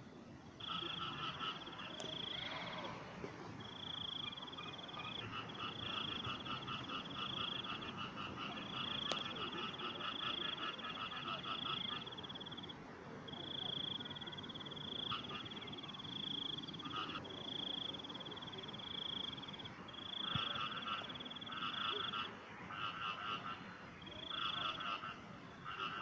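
Frogs calling in a chorus: long, high, rapidly pulsed trills follow one another, and from about twenty seconds in they change to shorter calls about once a second.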